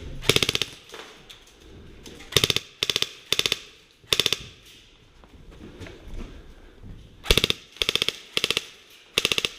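Airsoft guns firing on automatic in nine short bursts of a few rapid shots each, in two clusters about five seconds apart.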